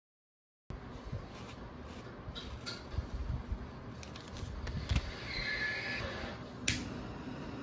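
Paper packet of incense sticks being unwrapped and handled: crinkling and rustling with soft knocks and a brief squeak, then one sharp click near the end.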